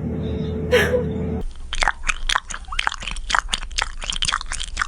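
A cat crunching dry food: quick, irregular crunches and chewing, starting about a second and a half in after a steady hum.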